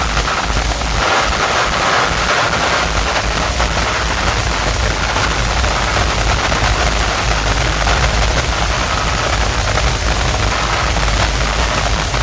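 Large DJ speaker stack playing at very high volume during a sound check. It comes through as a dense, distorted wash of noise over a heavy, steady low bass, with no clear tune.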